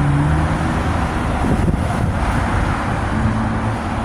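Steady road-vehicle noise, even and unbroken, with most of its energy low down.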